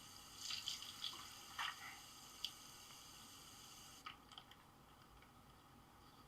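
Faint drips and small splashes of tea being poured, a handful of soft ticks in the first two and a half seconds, then near silence.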